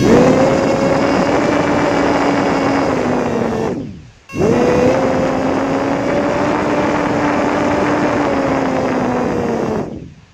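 Siren sounding in two long, loud blasts of nearly steady pitch, the first about four seconds long and the second about five and a half. Each comes on abruptly and drops in pitch as it cuts off.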